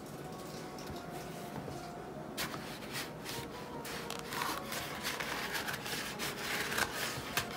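Hands handling a leather notebook cover: leather rubbing and sliding, with many small clicks and rustles starting about two and a half seconds in.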